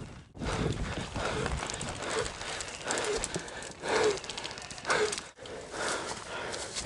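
Footsteps of a player moving over hard, gritty ground, one step or scuff about every second, with loose kit rattling.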